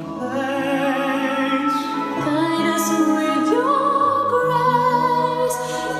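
Sonus Faber Extrema loudspeakers playing back a recording of operatic singing, long held notes with vibrato over accompaniment.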